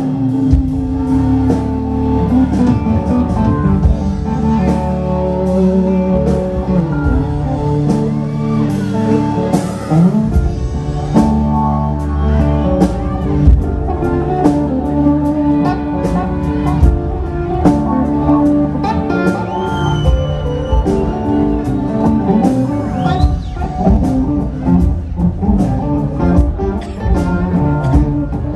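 A Southern rock band playing live through amplifiers: electric guitars leading over bass and a drum kit in a guitar-driven passage.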